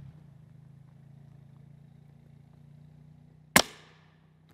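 A single shot from a suppressed CZ 557 bolt-action rifle in .308, firing a subsonic handloaded M80A1 round at about 916 feet per second. It is one sharp report about three and a half seconds in, with a short echoing tail.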